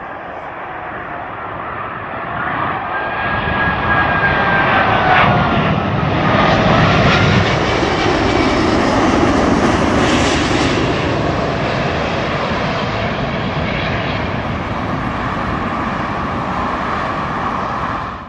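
Qantas Airbus A380's four Rolls-Royce Trent 900 turbofans on final approach, passing low overhead. The engine noise builds over several seconds, and a whine glides down in pitch as the aircraft passes. A steady rumble follows as it moves off toward the runway, and the sound cuts off abruptly at the end.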